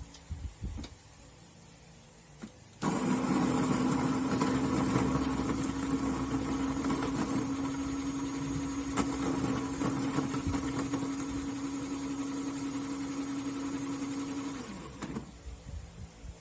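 A few light clicks, then an electric coffee grinder's motor starts abruptly about three seconds in and runs steadily, grinding coffee beans to a medium-fine grind for about twelve seconds, before winding down with a falling hum.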